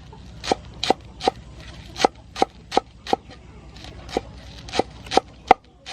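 Knife chopping green onions on a cutting board: about a dozen sharp, separate chops, two to three a second, with a short pause around the middle.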